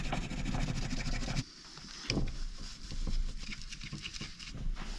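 Scratchy rubbing and scraping of hand work on a turbocharger's metal housing. It comes in two spells, with a short lull and a light tap between them.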